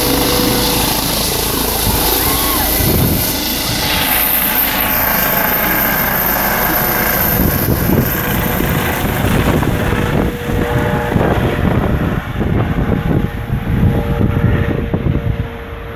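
Air ambulance helicopter lifting off and climbing away overhead, its turbine and rotor noise loud and steady. The high whine fades over the last few seconds as it draws off, leaving a low fluttering rotor rumble.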